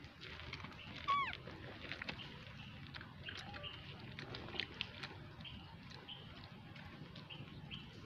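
Infant macaque giving one short, falling squeal about a second in, followed by scattered faint high chirps and ticks.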